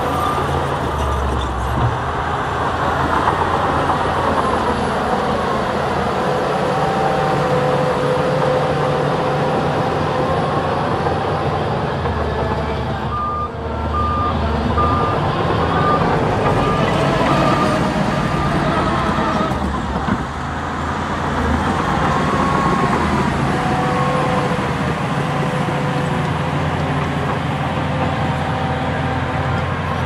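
Heavy diesel engines of a bulldozer and dump truck working, the engine note rising and falling with load. A reversing alarm beeps briefly at the start and again for several seconds midway.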